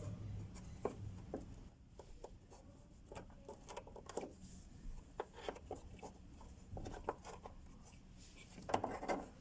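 Scattered light clicks, taps and rubbing of hands and hand tools working at the fuel pump access under the car's rear seat, irregular and unevenly spaced, with a louder cluster of knocks near the end.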